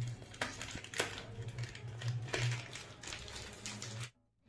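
Plastic packets crinkling and small items shifting as hands rummage in a desk drawer, over a low steady hum. Irregular crackles and clicks throughout, cutting off abruptly near the end.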